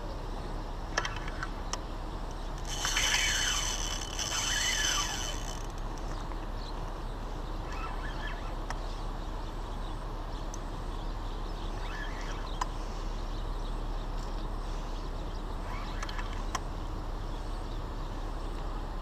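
Spinning reel's drag (a Penn 6500ss) buzzing as it gives line for about three seconds, a few seconds in: a hooked fish is pulling against the bent rod. A steady background hiss runs underneath.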